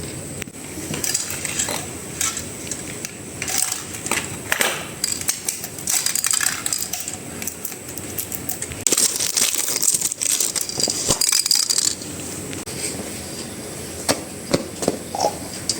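Metal parts and hand tools clinking and knocking irregularly during repair work, with a hiss lasting about three seconds from about nine seconds in.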